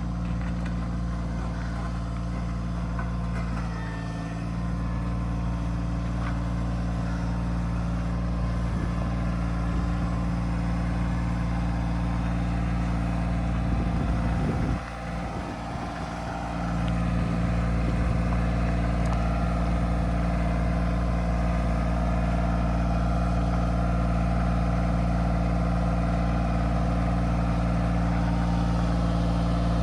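Kioti CK2610 compact tractor's three-cylinder diesel engine running steadily while working a heavy log with its grapple. About halfway through it drops briefly, then comes back up louder and holds there.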